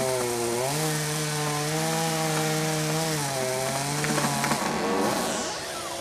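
Stihl MS200T top-handle chainsaw's two-stroke engine running at high revs while cutting hickory, its pitch sagging and recovering as the load changes. It drops away about four and a half seconds in.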